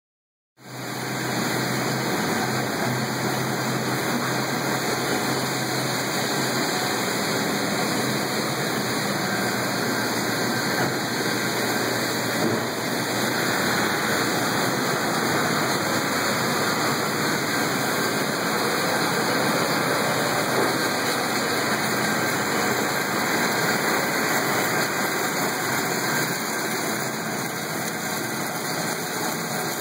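Oilfield mud dewatering plant running: steady machinery noise from the shaker screen unit mixed with water gushing from a discharge pipe into a tank. A low hum is strongest in the first few seconds.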